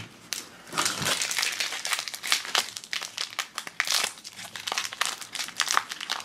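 Crinkly plastic blind-bag wrapper being crumpled and pulled open by hand: a dense, continuous run of sharp crackles that begins a moment in.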